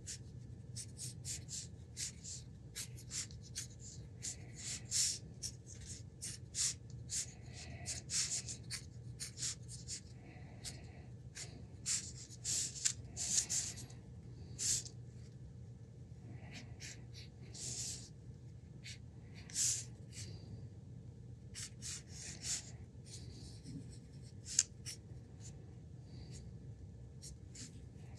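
Short, irregular scratching and rubbing strokes with occasional clicks, over a steady low hum.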